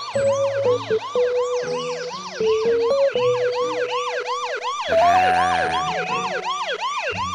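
Many cartoon birds chirping in quick, overlapping rising-and-falling tweets, about four a second, over background music with held notes.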